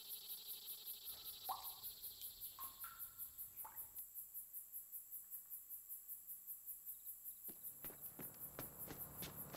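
Crickets chirping in a steady, rapid pulsing rhythm, with a few short rising chirps in the first half. Near the end a quick run of light taps like footsteps begins.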